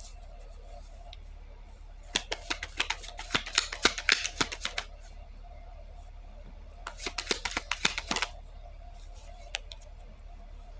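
A deck of cards being shuffled by hand: two bursts of quick, rapid clicking flicks, the first about two seconds in lasting some three seconds, the second shorter, about seven seconds in.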